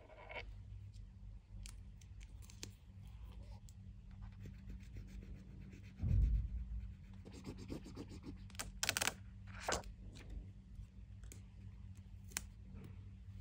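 Paper handling: a sticker sheet and scrapbook page rustling and scratching as stickers are peeled off and pressed down, with a dull thump about six seconds in and two sharp scrapes a little later.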